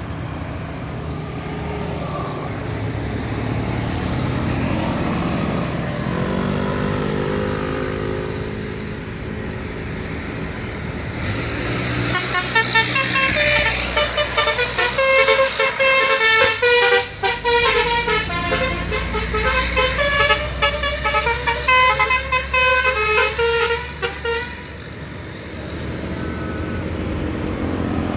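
Bus engine running nearby, then about twelve seconds in its telolet horn, a multi-tone bus horn, plays a quick melody of changing notes for about twelve seconds before stopping, with the engine going on underneath.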